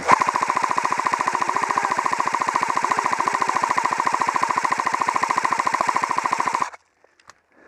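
Electric airsoft gun firing one long full-auto burst, a fast even rattle of about fifteen shots a second over a steady gearbox whine. The burst cuts off abruptly after six or seven seconds.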